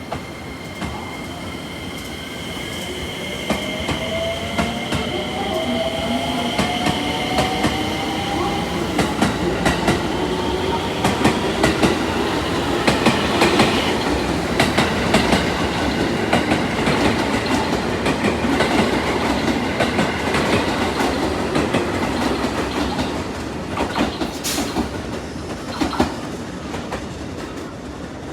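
EF65 electric locomotive hauling a string of Chiki long-rail flatcars past, the sound building over the first dozen seconds and staying loud. Wheels click over rail joints throughout, with a steady high whine in the first half.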